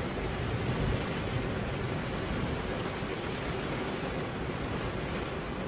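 Rain falling on a car window, a steady even hiss with no single drops standing out.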